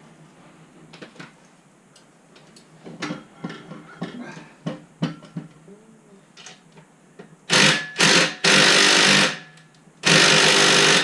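Small metallic clinks of tools and parts being handled, then four loud bursts from a power or air tool working on the scooter's front shock hardware. The bursts come about two-thirds of the way in.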